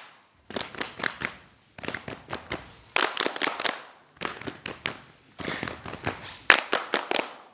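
Saman dancers clapping their hands and slapping their bodies in unison: quick runs of sharp claps and slaps, about six runs with short pauses between them.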